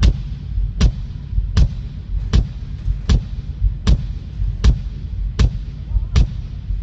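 A kick drum struck alone at a slow steady pulse, a little more than one hit a second, as the drums are checked one at a time through the PA. Each hit has a deep thud with a sharp beater click and rings out in a very large, echoing hall.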